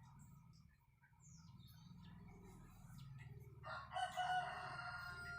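A rooster crowing once, a long call that starts late and is the loudest sound, over a steady low hum.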